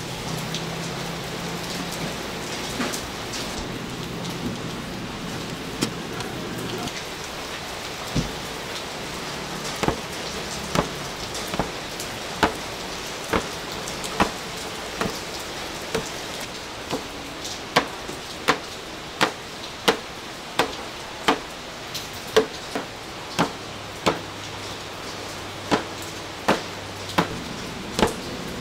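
Hot oil sizzling steadily, with sharp metal taps that settle into a steady rhythm of about one a second from a third of the way in, typical of a fryer tool striking the fryer while sweet potato balls deep-fry.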